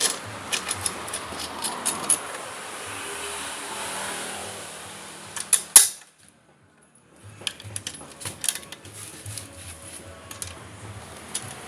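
Scattered sharp clicks and light knocks over a steady background noise, with a loud click about six seconds in followed by a brief drop to near silence before the clicking resumes.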